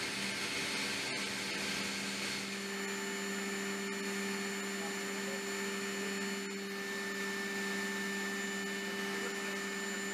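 Steady machinery drone inside an aircraft cabin: an even rushing noise with a constant hum and a second, higher held tone above it, unchanging throughout.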